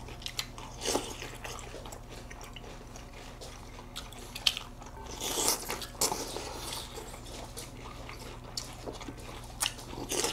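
Crunching and chewing of Special K cereal flakes in milk: scattered sharp crunches as bites are taken.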